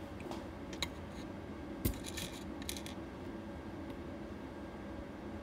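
Laparoscopic graspers clicking and tapping as they pick beads from a small dish: a sharp click about a second in, the loudest just before two seconds, then a quick cluster of light clicks, over a faint steady hum.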